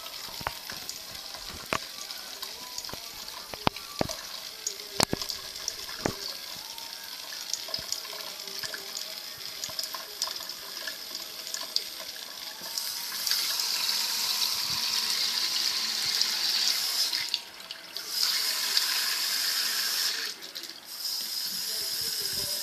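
Water running from a tap into a sink, a steady hiss with scattered splashes and drips at first. About halfway through the flow gets louder and fuller, and it briefly drops away twice near the end.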